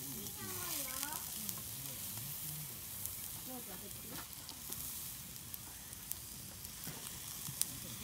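Pork belly skewers sizzling over charcoal, with a steady hiss of rendering fat and scattered sharp pops and crackles, as the skewers are turned on the grill.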